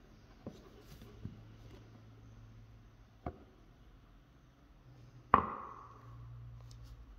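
Handling of an antique leather-bound book: a few light clicks and taps as the cover is opened, then one sharp knock with a short ring a little after five seconds in.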